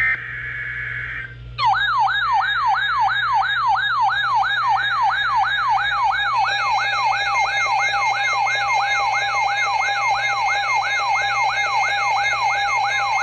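Emergency Alert System broadcast alert: a short buzzy data burst of the digital header, then a siren-like attention tone of quick rising whoops, close to three a second. About six seconds in, a steady two-tone EAS attention signal joins the whoops.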